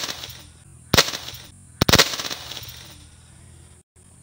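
A homemade wooden six-round pistol firing: a sharp bang at the start, another about a second in, and a quick double bang just before two seconds, each trailing off over about half a second.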